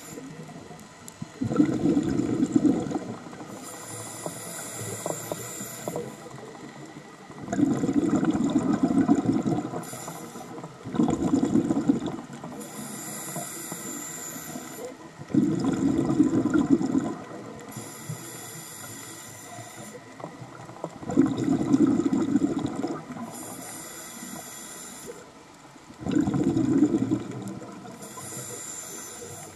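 Scuba diver breathing through a regulator underwater. A high hiss of each inhale alternates with a louder, lower bubbling rumble of exhaled air, about six breaths in a slow, even rhythm.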